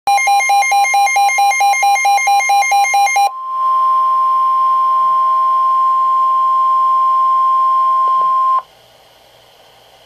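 A Midland S.A.M.E. weather alert radio beeping rapidly at about five beeps a second for roughly three seconds. Then the NOAA Weather Radio 1050 Hz warning alarm tone sounds as one steady tone for about five seconds and cuts off abruptly, leaving faint hiss. The tone is the signal that a warning-level message, here a severe thunderstorm warning, follows.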